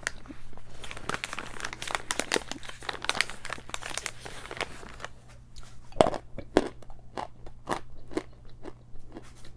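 Edible chalk being bitten and chewed close to the microphone. The crunching is dense and irregular for about five seconds, then thins out into fewer, sharper crunches, the loudest about six seconds in.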